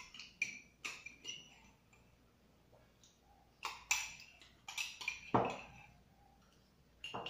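Metal spoon clinking and scraping against a ceramic mug while scooping ice cream: a few light clinks at the start, a quick run of them around four seconds in, and a heavier knock about five seconds in.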